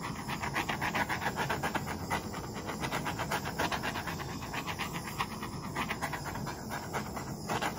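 Handheld butane torch flame hissing as it is swept over wet acrylic paint to pop air bubbles, with a fast, even flutter. It stops shortly before the end.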